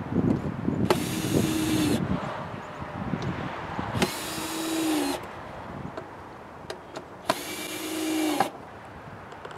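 Cordless drill driving screws into lumber: three runs of about a second each, its motor whine dipping slightly in pitch at the end of each run.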